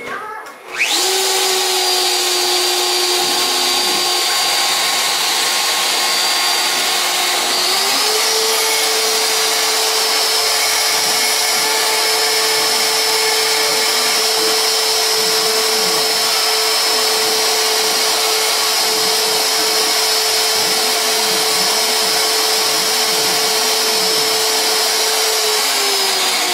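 Router motor on a CNC bracket fitted to a Sieg X3 mill, switching on about a second in and running loud with a steady whine while engraving. The whine steps up in pitch about eight seconds in and drops slightly near the end.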